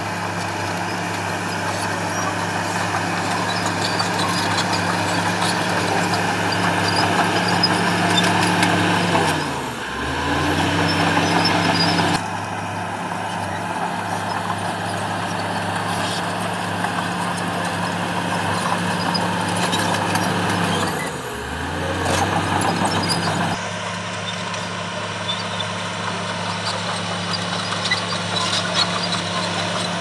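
Shantui crawler bulldozer's diesel engine running steadily as it pushes soil, its speed dipping and picking back up twice, about ten seconds in and again about twenty-one seconds in, with small clinks and rattles over it.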